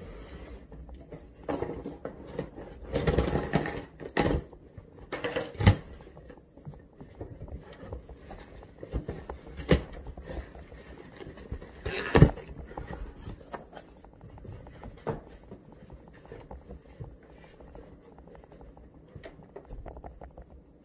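Hands unpacking a shipping package: irregular rustling and scraping with scattered sharp knocks, the loudest about twelve seconds in.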